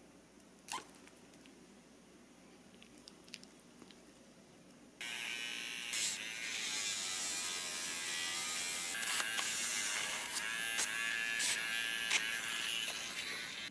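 Battery-powered electric pet nail grinder switching on about five seconds in and running with a steady high whine as it files a Maltese's nail, with a few light clicks. It cuts off near the end. A single sharp click comes near the start.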